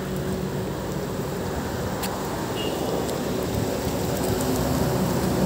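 A vehicle engine idling with a steady low hum under a continuous hiss. A sharp click comes about two seconds in, followed by a brief high chirp.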